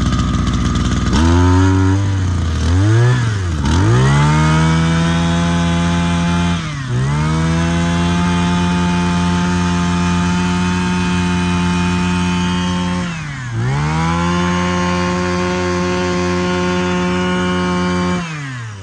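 Mitsubishi TU26 26cc two-stroke brush cutter engine running. It idles briefly, is revved up and down twice, then is held at high revs with two short dips in throttle, and drops back toward idle near the end.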